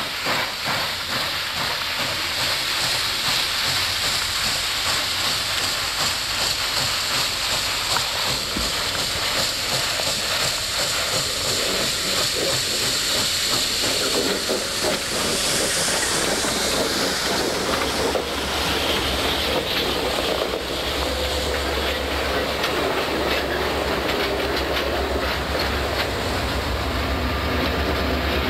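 Pere Marquette 1225, a 2-8-4 Berkshire steam locomotive, working past with rapid exhaust chuffs and hissing steam around its cylinders. In the second half the diesel locomotives behind it go by with a steady low engine drone.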